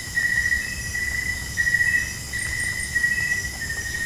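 Crickets trilling at night: a continuous high, pulsing chirr that swells and eases every half second or so. About two and a half seconds in, three quick faint higher chirps sound over it.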